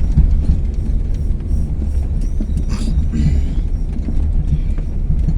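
Steady low rumble of a car on the move, road and engine noise heard from inside the vehicle, with a few faint knocks and rattles.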